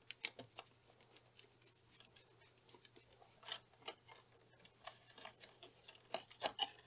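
Faint, scattered clicks and taps of a blue wire being fitted into the terminals of a wall-mounted switch box, with a few slightly louder ticks about halfway and near the end.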